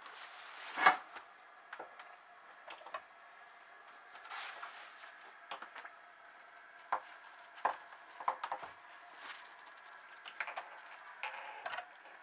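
Scattered knocks and bumps of a solid-state HF linear amplifier and its case being handled and set down on a wooden desk. The loudest thump comes about a second in, with a cluster of smaller knocks in the second half.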